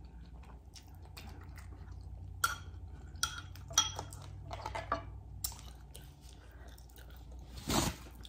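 Close-miked chewing of a mouthful of cheesy baked spaghetti, with scattered wet clicks and small crunches. Near the end comes a brief, louder rustle as a paper towel is grabbed.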